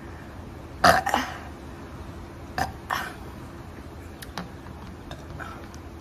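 A woman burping up gas from gulped Sprite: a loud burp about a second in, then two shorter, weaker burps near three seconds in.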